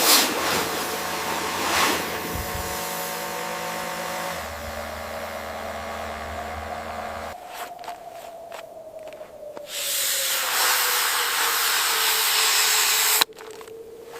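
Blizzard wind blowing as a steady hiss with a faint whistle that slowly wavers in pitch. The hiss drops away suddenly twice, once about halfway through and again near the end.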